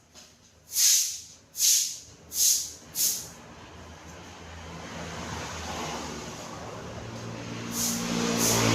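Four short hissing bursts about a second apart, then a hiss that grows steadily louder, and music coming in near the end.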